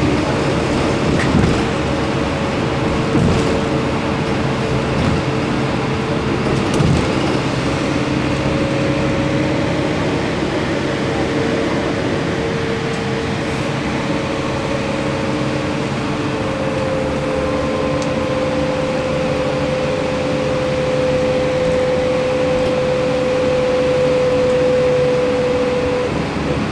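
Cabin noise of a vehicle driving on a wet road: a steady drone of road and engine noise, with a whine that drifts slightly in pitch and then holds steady.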